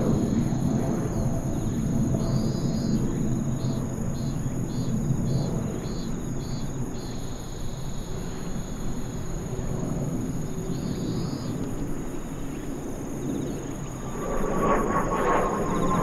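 Distant rumble of a Kawasaki T-4 jet trainer's twin turbofan engines passing overhead, swelling near the end with a slowly falling whine. Insects chirp in short, repeated bursts over it.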